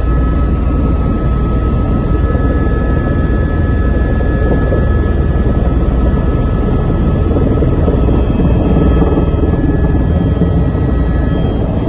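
Helicopter in flight: a steady drone from the rotor and engine, with a strong deep hum and faint steady whining tones above it.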